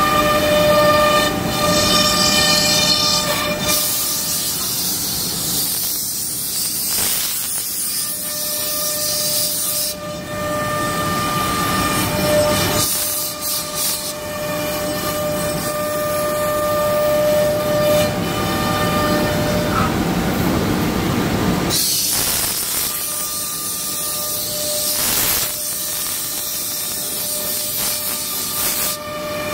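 CNC router cutting a melamine sheet: a steady whine of several tones with loud hissing stretches as the bit cuts through the board, twice for several seconds each.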